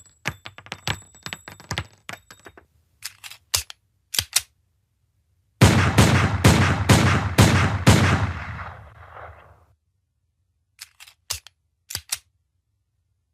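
Pistol gunshot sound effect. It opens with scattered metallic clicks and ringing, then a few single sharp shots, then a rapid burst of about ten shots with an echo that fades out. A few more single shots come near the end.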